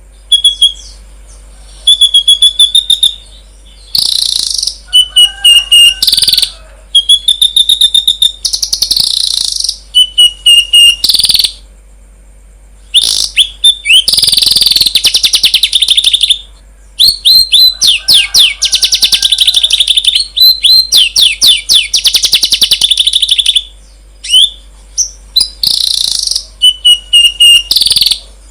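Songbird song from a birdsong training recording: high-pitched rapid trills and chattering, repeated phrases in bursts of one to three seconds, separated by short pauses.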